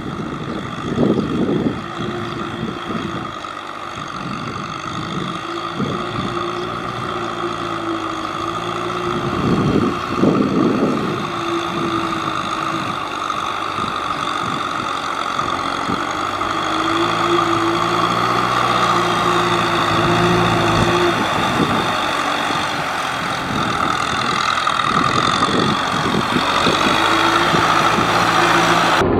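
Tractor engine running under load while ploughing deep mud, its pitch wavering up and down, with a steady higher whine above it. It grows gradually louder.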